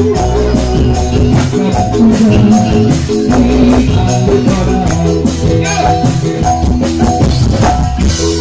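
Live dangdut band music played loud through a stage sound system: a melody line held over drums and percussion, running without a break.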